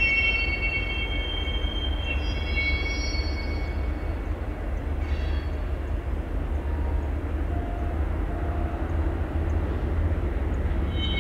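Freight train's steel wheels squealing in several high shifting tones, fading out after about four seconds over a steady low rumble, with the squeal coming back right at the end.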